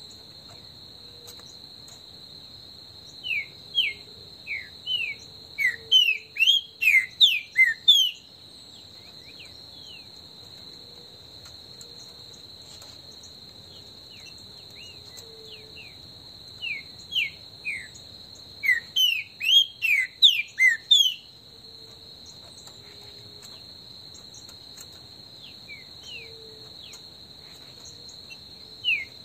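Green-winged saltator (trinca-ferro) singing three bouts of loud, quick whistled notes, each bout lasting four to five seconds: about three seconds in, about seventeen seconds in, and near the end. A steady high insect buzz, like a cricket or cicada, runs underneath.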